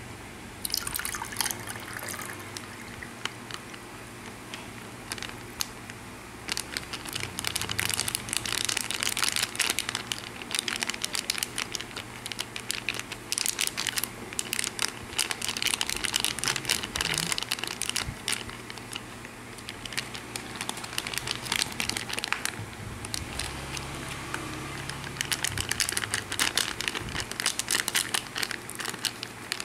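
Thin plastic bag crinkling and rustling as it is handled and squeezed, in stretches with short pauses, while aloe vera drink runs from it into a ceramic mug.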